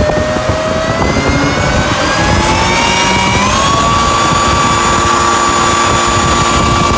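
Electric blower fan of an olive leaf-removing machine running with a loud rush of air, its whine rising in pitch for the first few seconds as the motor comes up to speed, then holding steady.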